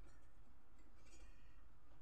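Faint scraping of a metal cooking pan being set and shifted on a small fired stove: a short scrape just after the start and a longer one about a second in, over a low steady rumble.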